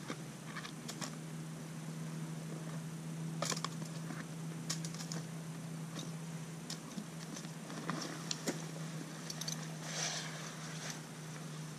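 Light rustling and scattered small clicks of nylon gear being handled as a hammock is pulled from its stuff sack, over a steady low hum.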